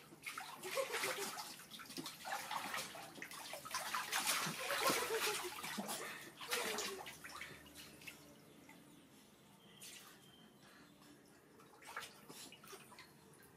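Water splashing and sloshing in an inflatable paddling pool as a young macaque swims and dives. It is loud and busy for the first half, then settles after about eight seconds into quiet lapping with a couple of brief splashes.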